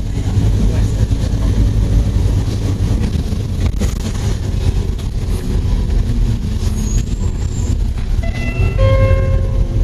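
Bus engine and tyres on a wet road heard from on board, a steady low rumble, with a brief high ringing tone near the end.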